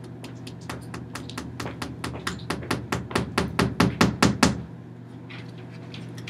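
Rapid series of sharp knocks struck by hand against the paper-covered wall, about five a second, growing louder and then stopping about four and a half seconds in.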